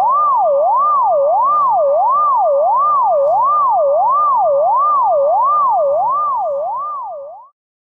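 Electronic siren tone sweeping smoothly up and down, about two cycles a second, loud and steady; it fades over the last second or so and then stops.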